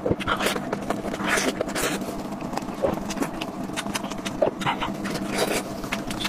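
Close-miked wet, sticky tearing and squelching as plastic-gloved hands pull apart a large braised fish in sauce, mixed with chewing and mouth sounds: many small irregular clicks and crackles. A steady low hum runs underneath.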